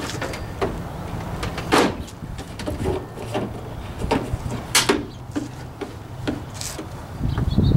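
Irregular knocks and clunks of a red gas can and lawn tractor parts being handled on a trailer, about a dozen separate sharp knocks over a steady low hum.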